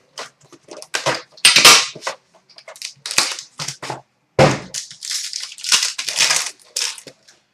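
Plastic card-box wrapping being torn open and crinkled, an irregular run of crackling rustles.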